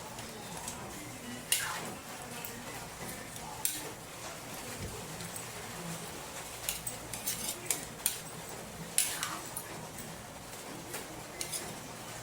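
Kitchen utensils and cookware clinking and knocking: a scattered series of sharp clinks, some ringing briefly, during cooking preparation.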